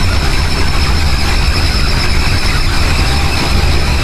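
Harsh noise music: a loud, steady wall of distorted electronic noise with a deep rumble underneath and a faint high whine riding on top.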